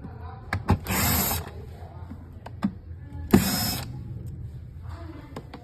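Small hand tools clicking and tapping against a device being taken apart, with two brief rasping, scraping bursts.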